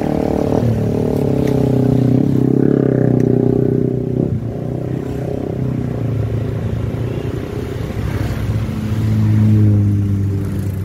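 A motor vehicle's engine running. Its pitch climbs over the first few seconds, drops suddenly about four seconds in, then rises again and is loudest near the end.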